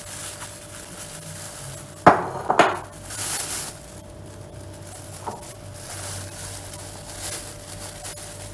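A ceramic bowl knocks sharply twice as diced tomatoes are tipped from it into a plastic bag, followed by a brief crinkle of the plastic bag and a few small clinks.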